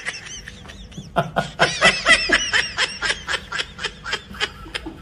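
Laughter in quick repeated pulses, about four a second, building up from about a second in.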